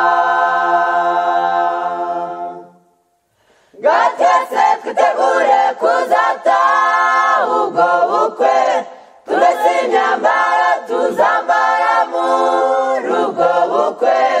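A cappella choir singing a Kinyarwanda gospel hymn. A long held chord fades out between two and three seconds in, and after a short pause the voices come back in with a new phrase.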